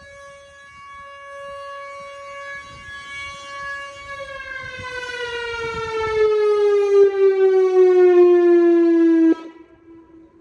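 Whelen Vortex R4 electromechanical tornado siren on test, holding a steady tone that grows louder, then winding down in pitch from about four seconds in as it shuts off at the end of the test. Near the end its sound drops away sharply, leaving a faint fading tail.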